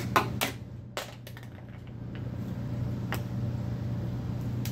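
Several sharp clicks and cracks within the first second and a half, then single clicks about three seconds in and at the very end, over a steady low hum.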